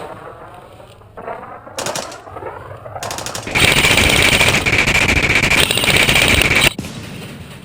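Airsoft gun firing on full auto close by: a couple of short bursts, then one long burst of about three seconds, rapid clatter with a steady high whine under it, which cuts off suddenly.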